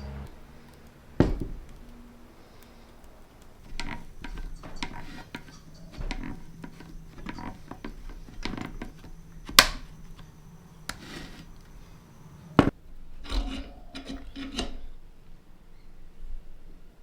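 Hand tools scraping and knocking on a steel control arm, with three sharp metallic knocks standing out among the scraping: an attempt to work the old rubber bushes out without a press.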